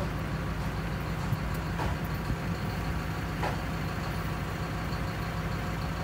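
A heavy diesel engine idling steadily with a low, even rumble.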